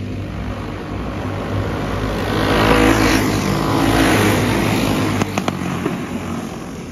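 Racing karts with single-cylinder clone engines passing close by at full throttle. The engine note swells to its loudest a few seconds in as the karts go past, then fades as they run on into the turn.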